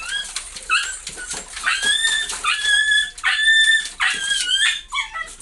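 Husky whining: a run of about six short, high whines, the clearest in the middle and the last one falling, with quick clicks in between.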